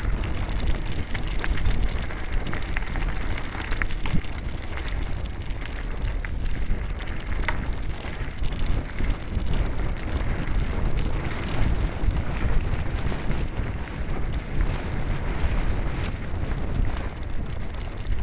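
Riding a mountain bike over a rough dirt and gravel trail: heavy wind rumble on the camera's microphone with scattered rattles and knocks from the bike over stones.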